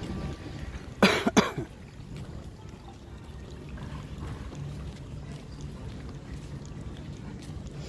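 A person coughs twice in quick succession, loud and close, about a second in, over a steady low background.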